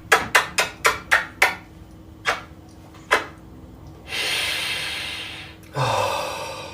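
A quick run of about seven sharp knocks, two more single knocks, then a hiss lasting about a second and a half and a shorter rush of noise just after.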